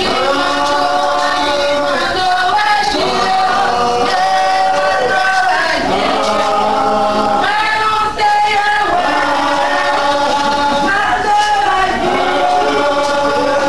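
A group of men's and women's voices singing a chant together in long held notes, with short breaks between phrases.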